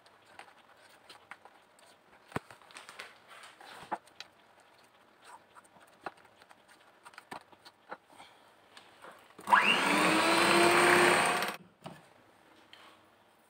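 A wooden spatula scrapes and taps faintly against a glass bowl while folding whipped cream into a chocolate mixture. About nine and a half seconds in, an electric hand mixer starts with a rising whine, runs loudly for about two seconds while beating cream, and cuts off suddenly.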